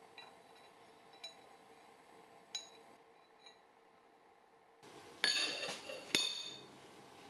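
A few light metallic clinks as small steel parts are handled. About five seconds in come two louder ringing clanks as a steel disc is set down on a steel welding table.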